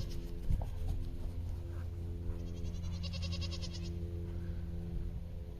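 Goats bleating, with one long, trembling bleat about two seconds in, over a steady low hum.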